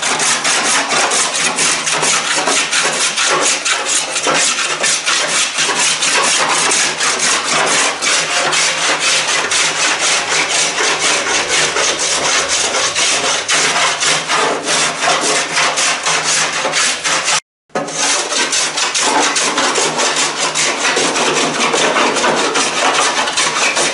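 Small wooden-boat hand plane shaving the wooden strips of a kayak model's deck in rapid, repeated rasping strokes, fairing down the strips that were left thicker in places. The sound cuts out for a split second about two-thirds of the way through.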